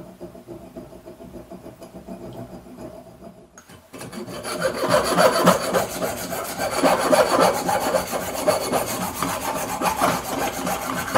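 Junior hacksaw sawing back and forth through a chrome kitchen-tap lever that has seized onto its cartridge, cutting it off. The rasping strokes start loud about four seconds in, after a fainter stretch.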